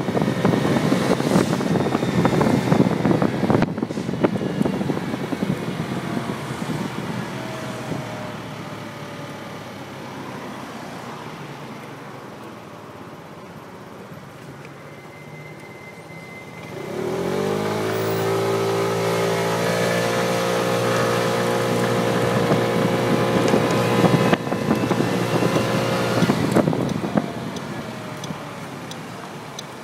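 A 50cc four-stroke SYM Symply scooter being ridden, with wind buffeting the mirror-mounted phone's microphone. The wind noise dies down as the scooter slows. A little past halfway the engine revs up quickly and then holds a steady note as the scooter pulls away, and the wind builds again before easing near the end.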